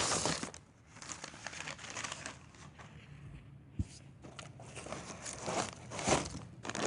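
Packaging being unwrapped by hand: irregular crinkling and tearing of wrapping material, loudest at the start and again after about five seconds, with one sharp tick about four seconds in.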